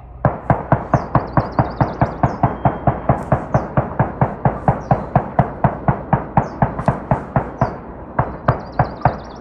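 Sustained rapid gunfire, evenly spaced at about five shots a second, with a brief pause near the end before it resumes.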